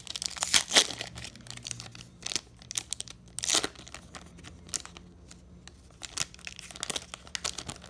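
Foil booster-pack wrapper being crinkled and torn open by hand, with sharp bursts of crackling about half a second in and again around three and a half seconds. Softer crinkling follows as the cards are slid out of the torn wrapper.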